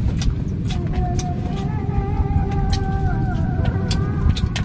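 A steady low rumble runs throughout, with scattered light clicks of spoons and fingers on plates and a plastic container as people eat.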